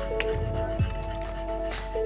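Background music: held notes with a single deep drum hit about a second in.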